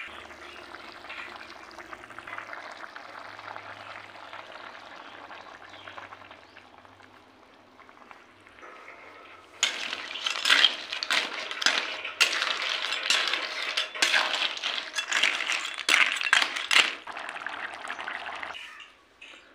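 Water snails in their shells bubbling and sizzling in curry gravy in a wok. About ten seconds in, a wooden spatula starts stirring them, and the shells clatter and clink against each other and the pan, louder than the simmer; the stirring stops shortly before the end.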